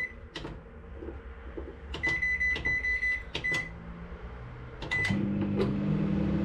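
Microwave oven keypad beeping as its buttons are pressed to set the cooking time: a string of short beeps with button clicks. About five seconds in, the oven starts heating and runs with a steady hum.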